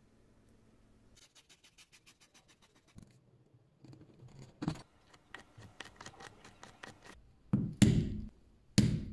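Flat metal scraper drawn across leather, ending in two loud scraping strokes. It is preceded by a quick run of even ticks, about ten a second, and then lighter scratchy strokes.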